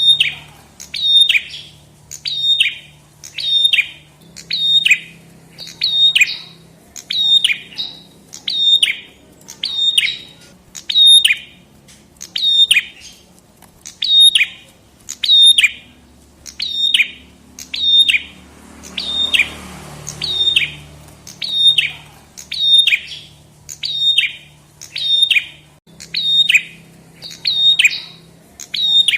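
Prenjak kepala merah (red-headed prenjak) calling: a short, sharp call that drops steeply in pitch, repeated at an even pace of about three calls every two seconds.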